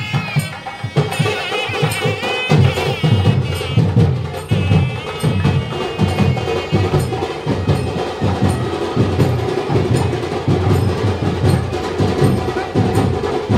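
Dappu frame drums beaten in a steady beat, with a wavering high pitched tone over the drumming in the first half.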